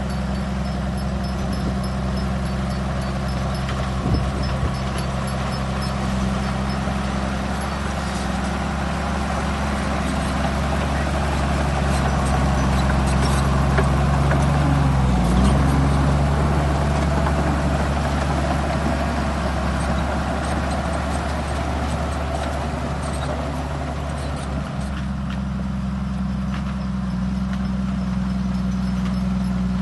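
Heavy diesel earthmoving machinery engine running steadily, working harder and louder for a few seconds in the middle, with metallic clanking and a sharp knock about four seconds in.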